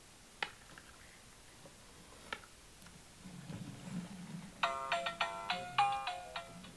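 Bright Starts pop-up airplane toy: two faint plastic clicks, then a low whir as its propellers spin, and from about two-thirds of the way in a quick electronic jingle of short beeping notes from its speaker, played as the plane takes off.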